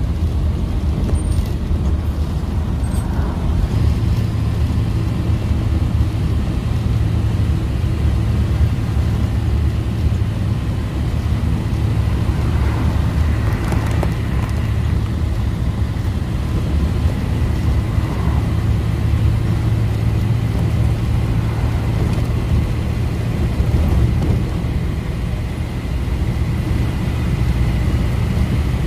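Bus engine and road noise heard from inside the cab while driving: a steady low rumble with a faint, steady high whine.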